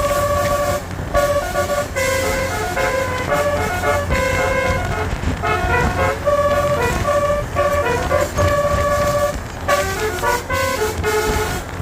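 Bus 'basuri' telolet horn playing a quick melody of multi-tone horn notes, short and held, with brief breaks, over a low rumble.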